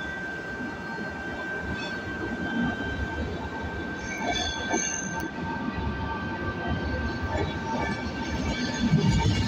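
ETR 485 Frecciargento electric train arriving out of a tunnel and running in alongside the platform, its rumble growing louder as the front cars pass close by near the end. Brief high wheel squeal about four seconds in.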